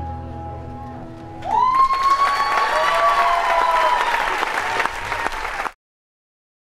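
The band's last held notes on acoustic guitars and piano ring and fade, then about a second and a half in the audience breaks into loud applause with long high whoops over the clapping. The sound cuts off abruptly near the end.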